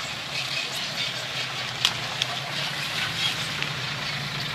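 Isuzu Deca dump truck's diesel engine running as the truck drives past over rough ground: a steady low engine hum. A few sharp clicks or knocks come from the truck, the loudest about two seconds in.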